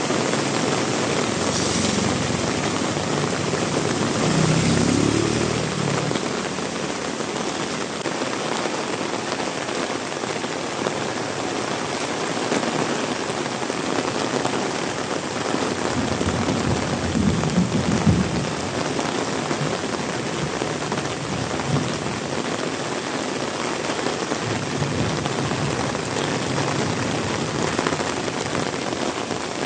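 Heavy rain pouring steadily, a dense hiss of rain on surfaces. Twice a deeper low swell rises under it, about five seconds in and again past the middle.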